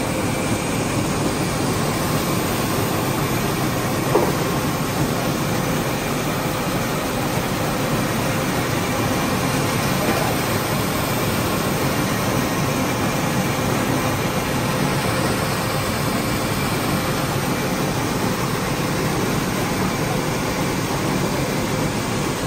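6N70 mini rice mill with a 10 hp motor running steadily while milling paddy, a continuous mechanical hum and rush of grain through the machine. A single sharp knock comes about four seconds in.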